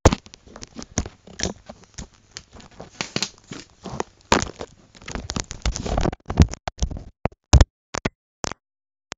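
Handling noise: a dense run of crackling, rubbing and clicking for about seven seconds as the handheld recording device is moved about, then a few separate clicks and a dull knock.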